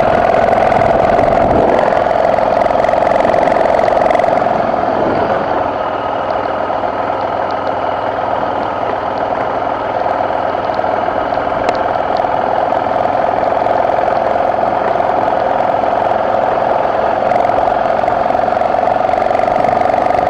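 BMW F650GS motorcycle engine running steadily. About four seconds in, the sound dulls and drops slightly in level.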